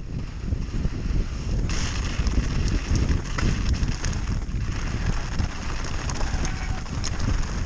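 Wind buffeting the microphone of a mountain bike rider descending at speed, over the rattle and clatter of the bike on rough ground.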